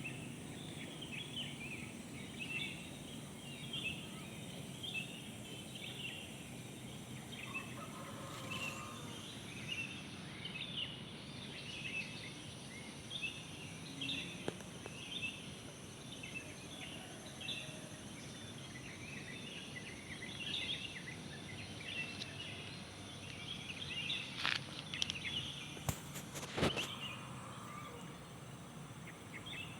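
Wild birds singing, with many short chirping phrases repeating about once a second over a low, steady outdoor rumble. A few sharp knocks come near the end.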